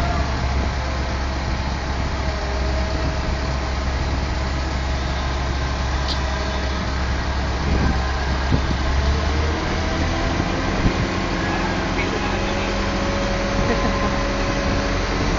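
Mobile crane's engine running steadily during an operator test; its deep low drone drops away about ten seconds in as the engine note changes.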